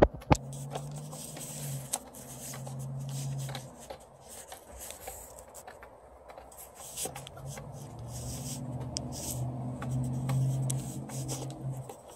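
Domestic white turkeys pecking feed from a plastic poultry feeder: irregular sharp taps and scrapes of beaks on the plastic tray and crumbs. A low steady hum runs under it for the first few seconds, stops, and returns for the second half.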